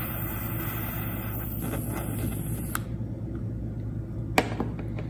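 Butane torch lighter hissing as its flame burns wood chips in a cocktail smoker top, shut off a little under three seconds in. A sharp click follows about a second and a half later, over a steady low hum.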